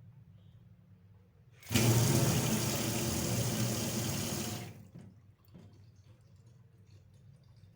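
Kitchen water tap turned on: water gushes into the sink for about three seconds, then shuts off abruptly, leaving faint drips and low hum.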